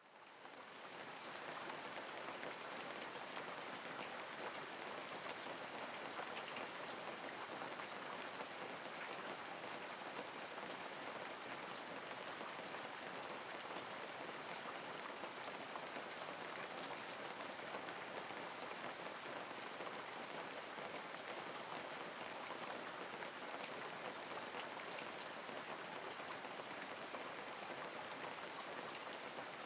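Light, steady rain falling, with scattered individual drop ticks over an even hiss; it fades in over the first second.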